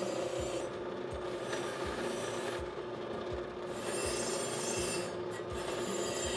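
A wire brush wheel spinning in a drill press scours a cast bronze cube: continuous scratchy rubbing of bristles on metal over the steady hum of the drill press.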